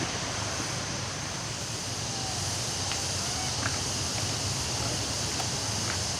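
Steady outdoor background noise: a constant high-pitched hiss over a low rumble, with a few faint ticks and faint traces of distant voices.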